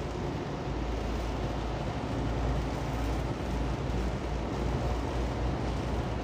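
Steady low drone of a truck driving on a rain-soaked highway, heard from inside the cab: engine and tyre noise under an even hiss of road spray.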